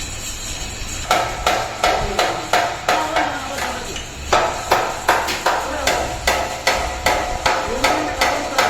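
Hammer striking a steel part over and over, about three blows a second beginning about a second in, with a brief pause near the middle; each blow rings metallically.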